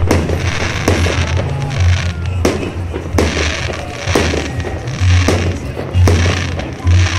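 Fireworks salute: aerial shells bursting with sharp bangs about once a second, six or seven in all, amid the crackle of the bursting stars, over a low throb.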